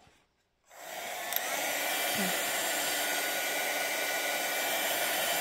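Craft embossing heat gun switched on about a second in, then blowing steadily. It is melting clear embossing powder to seal a stamped area.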